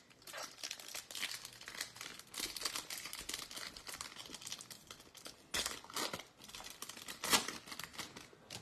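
Foil wrapper of a Topps Holiday baseball card pack being torn open and crinkled in the hands as the cards are slid out. There are sharper crackles about five and a half, six and seven and a half seconds in.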